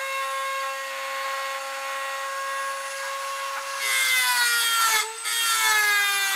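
Dremel rotary tool with a metal cut-off wheel in a router base, running at high speed with a steady high whine. About four seconds in the wheel bites into the metal on a shallow pass: the sound gets louder, the pitch sags a little and a harsh grinding joins it, with a short break near five seconds.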